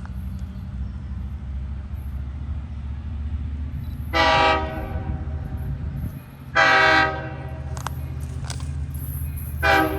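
LIRR DE30AC diesel locomotive 417 running, with its multi-chime air horn sounding two long blasts about four and six and a half seconds in, then a short one near the end. The pattern is the start of the long-long-short-long grade-crossing signal.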